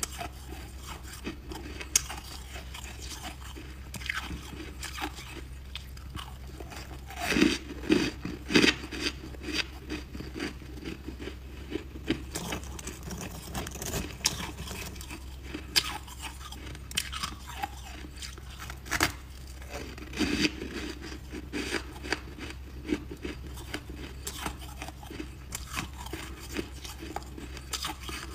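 Crisp, irregular crunching of white chunks of frost and shaved ice being bitten, chewed and broken apart, with a loud quick run of crunches about seven to nine seconds in.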